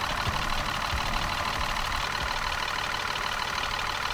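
Car engine idling steadily, with an even low pulsing.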